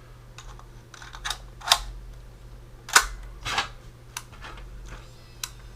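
A series of sharp plastic clicks and clacks from handling a Sony DCR-TRV330 camcorder and its cassette, about six in all, the loudest about three seconds in, over a low steady hum.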